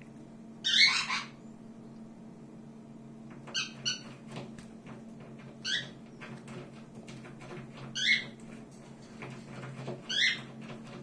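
Pet birds calling in short, high-pitched calls: a longer call about a second in, a quick pair, then single calls every two seconds or so. A steady low hum runs underneath.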